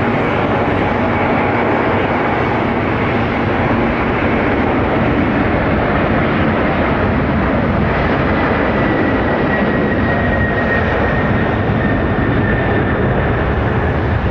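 McDonnell Douglas MD-11F trijet freighter's jet engines at takeoff power, a loud steady jet noise. From about halfway a faint high whine sits in it and slowly falls in pitch.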